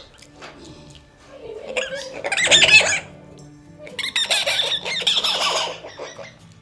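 Primate calls: two loud bursts of shrill, wavering screeching, the first about a second and a half in and the second about four seconds in, over steady background music.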